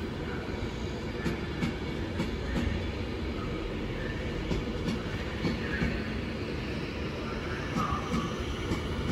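Train rolling along the track: a steady rumble with irregular wheel clicks over the rail joints.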